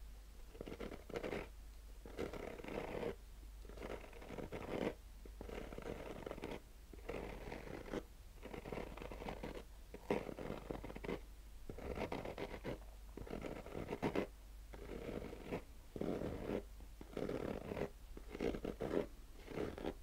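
Fingernails scratching slowly over the textured fabric cover of a zippered sunglasses case: a run of scratch strokes, one after another with short breaks between them.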